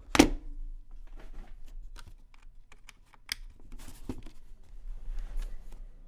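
Typing on a mechanical keyboard with SMK orange switches in a steel plate and plastic case: an uneven run of key clicks, with one much louder clack that rings briefly just after the start.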